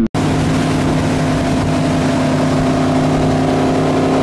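Towboat engine running at a steady speed, a constant even drone that holds one pitch, after a split-second dropout at the very start.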